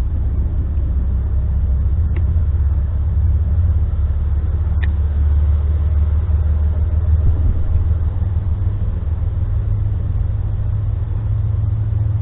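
Steady low engine rumble, as of a vehicle idling, with two faint light clicks a few seconds in.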